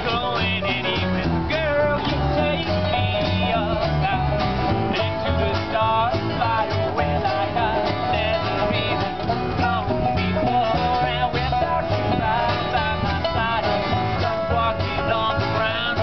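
Acoustic string band playing a bluegrass-style tune: banjo, fiddle, two acoustic guitars and upright bass together, over a steady bass beat.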